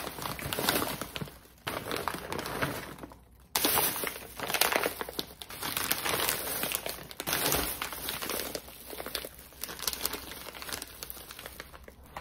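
Thin plastic grocery bags and plastic food packaging rustling and crinkling in irregular bursts as groceries are pulled out of them by hand.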